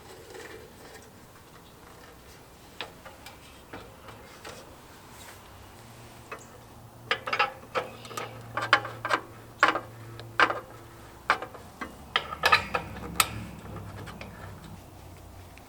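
Sharp metallic clicks and taps of a propane hose fitting being handled and screwed onto a portable propane heater-stove, a few at first, then a quick run of them over several seconds in the second half.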